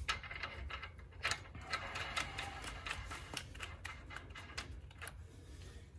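Light, irregular metallic clicks as a new axle nut is spun on by hand onto the threaded end of a CV axle at the wheel hub.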